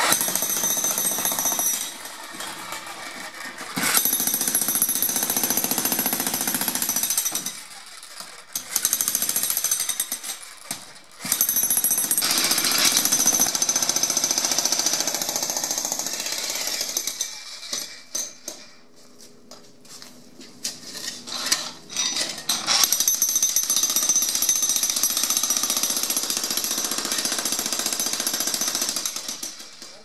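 Electric jackhammer breaking up a concrete pool deck, running in long bursts of several seconds with short pauses between them. Scattered knocks are heard in the quieter gaps.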